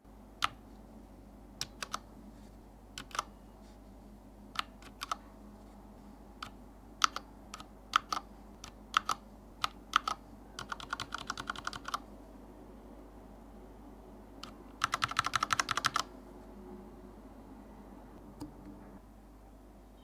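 Keys of an IQUNIX F96 mechanical keyboard pressed one at a time with sharp clicks. Two quick runs of rapid keystrokes follow, about halfway and near the three-quarter mark, the second the loudest.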